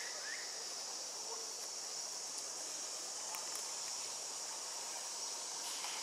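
Steady high-pitched drone of insects, with a short chirp just at the start.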